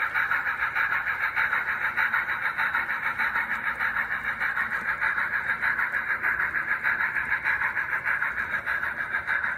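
S scale brass steam locomotive model running along the track, a steady mechanical clatter with a rapid, even pulse of about seven beats a second.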